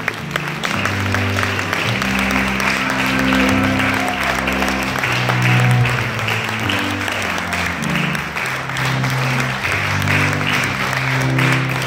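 Audience applauding steadily over music with held low bass notes that change every second or so.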